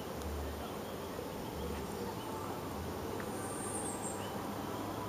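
Insects buzzing and chirping over a steady outdoor hiss, with a brief high buzz about three and a half seconds in.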